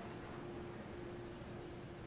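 Quiet room tone with a faint steady hum, in a pause between stretches of speech.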